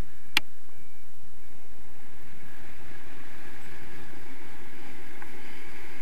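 Airflow of a paraglider in flight buffeting the camera's microphone: a steady, rumbling wind noise, with one sharp click about half a second in.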